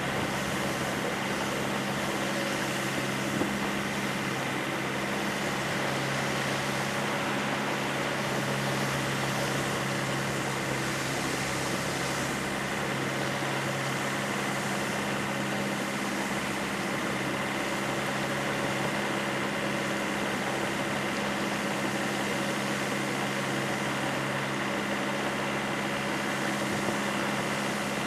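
Steady machine hum with a few constant tones over an even rushing noise, unchanging throughout.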